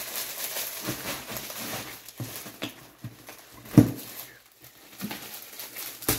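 Plastic packaging and bubble wrap rustling and crinkling as items are handled in a cardboard box, with scattered light knocks. A single louder thump comes a little under four seconds in, and a sharp knock near the end.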